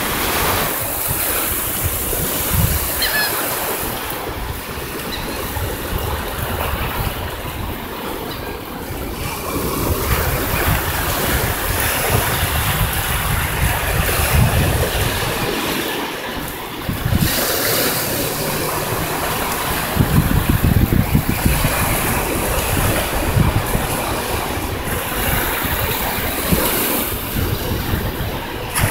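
Small surf waves breaking and washing up a sandy beach: a continuous rush of water that swells and eases with each wave, with wind gusting on the microphone.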